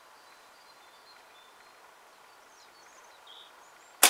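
Faint bird chirps over quiet outdoor ambience, then near the end a single loud, sharp snap as a flatband slingshot with tapered bands is released, firing a 7 mm steel ball.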